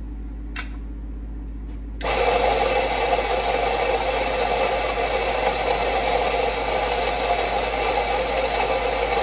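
Rancilio Rocky coffee grinder switched on about two seconds in, its motor and burrs running steadily as they grind coffee beans into a portafilter at a very fine setting, just short of the burrs touching. A short click comes just before it starts.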